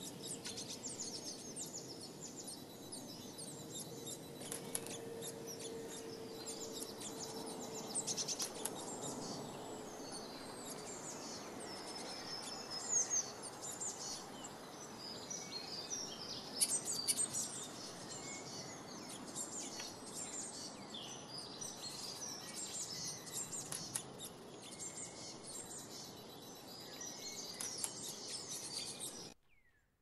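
Small songbirds chirping and calling in quick, high notes over a steady outdoor background hiss. A faint steady hum runs for a few seconds beneath them, and the sound cuts off suddenly near the end.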